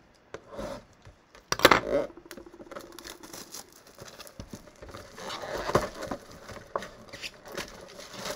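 A cardboard box of baseball card packs being torn open by hand, with a sharp rip about one and a half seconds in, then rustling and crinkling as the packs are handled.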